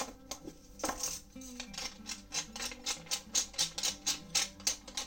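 Wooden pepper mill grinding black pepper, a steady run of short crunching clicks about four a second from about two seconds in, after a single knock about a second in. Soft guitar music plays underneath.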